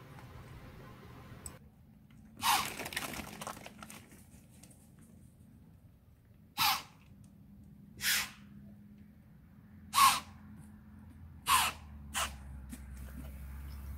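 White-tailed deer snorting: a longer breathy snort about two and a half seconds in, then five short sharp ones spaced a second or two apart. The snorts are a sign of alarm and disapproval.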